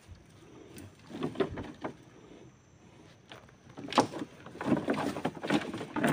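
Knocks and clattering in a small boat, in two bouts: a short one about a second in and a longer, louder run from about four seconds in.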